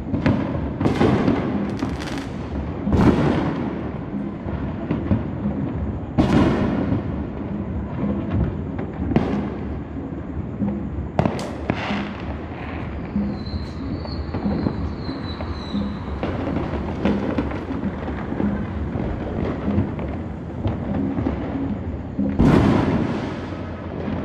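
Many consumer fireworks going off across a neighbourhood: a string of sharp, echoing bangs over a continuous rumble of more distant booms, with one of the loudest bangs near the end.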